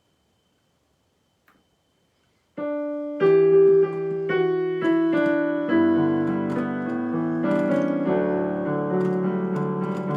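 Near silence with a faint click, then about two and a half seconds in a piano starts playing held chords: the introduction to a hymn refrain before the singing comes in.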